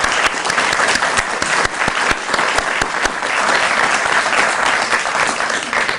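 Audience applauding: a steady mass of hand claps that tapers off at the end.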